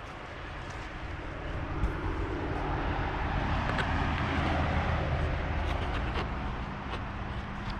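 A vehicle passing by: its rushing noise swells to a peak about halfway through, then slowly fades.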